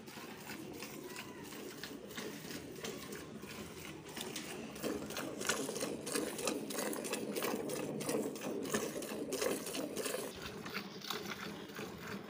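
Cow being milked by hand: rhythmic spurts of milk squirting into a green plastic bucket, one short hiss per squeeze, getting louder from about five seconds in.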